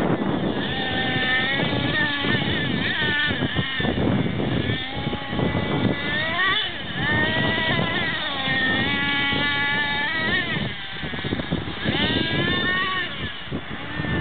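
Thunder Tiger MTA-4 radio-controlled monster truck's nitro engine revving up and down again and again as the truck drives over gravel mounds, a high-pitched whine that rises and falls.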